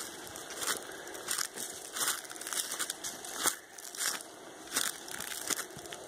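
Footsteps crunching on dry leaf litter, about one step every 0.7 s. Under them is a faint, steady roaring of a distant troop of brown howler monkeys.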